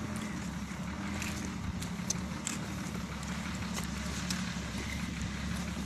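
Steady low engine hum, with a few faint clicks.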